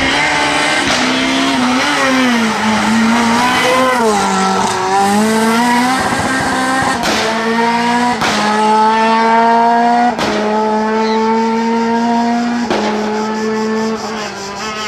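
Renault Clio R3 rally car's naturally aspirated four-cylinder engine at full effort: the revs swing up and down through the corner for the first few seconds, then the note climbs steadily in each gear as the car accelerates away, broken by four quick upshifts, fading slightly at the end.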